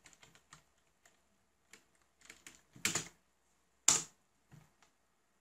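Typing on a computer keyboard: scattered soft keystrokes, with two louder clicks about three and four seconds in.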